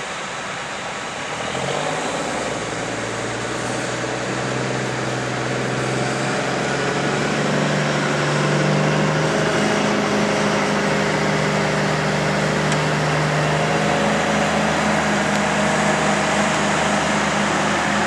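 Heavy diesel engine of a semi truck pulling a grain hopper trailer over corn stubble, growing louder as it comes close. It drowns out the steady hum of the harvest machinery behind it.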